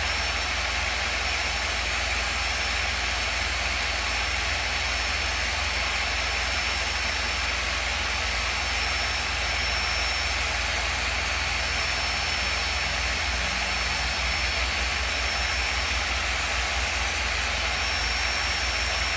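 Corded electric drill running steadily at speed, spinning line off a fishing spinning reel: a continuous whirring hiss with a thin high whine over it.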